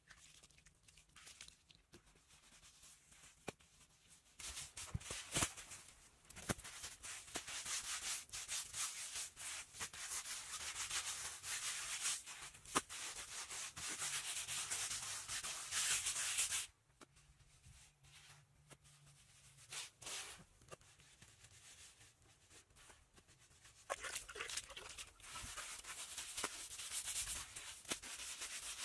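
Bare hands scraping and rubbing damp soil and mud, a steady scratchy rustle that comes in two long spells with a quieter gap of several seconds in the middle.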